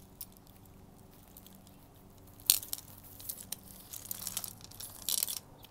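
Costume jewelry being handled and rummaged through: scattered small clicks and rustles, with a sharp click about two and a half seconds in and a cluster of rustling near the end. A faint steady hum runs underneath.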